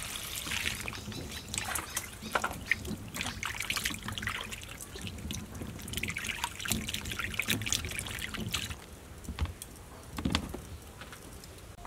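Grapes being washed by hand in a plastic basin of water: water poured over them at the start, then splashing and sloshing as hands rub the grapes. About ten seconds in, a few soft knocks as the wet grapes are dropped into a plastic colander.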